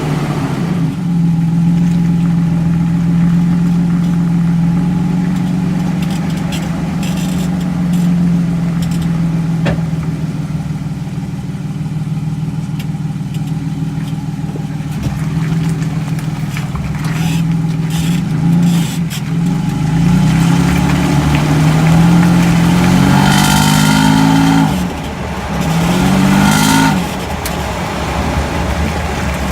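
2011 Toyota Tacoma running with a steady engine hum, scattered brief clicks or rattles, and two stretches of rising revs about two-thirds of the way through. This is the noise the owner cannot identify.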